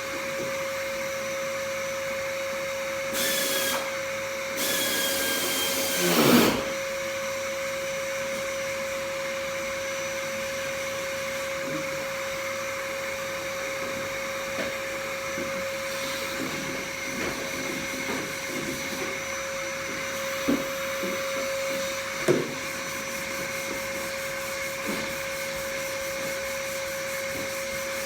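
Electric power sander running with a steady whine. Two louder rushing bursts come between about three and six and a half seconds in, then light scattered knocks and scrapes against the panel.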